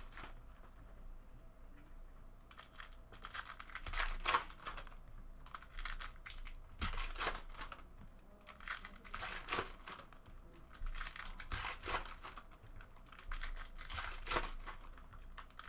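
Foil trading-card pack wrappers being torn open and crinkled by hand, in irregular crackling bursts, with cards handled in between.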